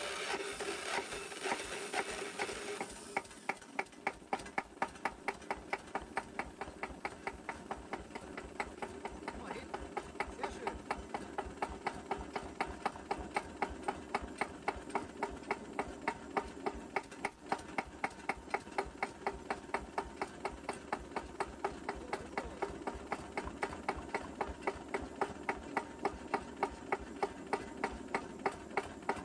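An electric starter cranks a Cunewalder single-cylinder hopper-cooled diesel with a steady whir. About three seconds in the whir stops abruptly, and the engine runs on its own at a slow idle, an even beat of about three sharp knocks a second. The idle has been lowered with extra washers packed under the injection pump's governor spring.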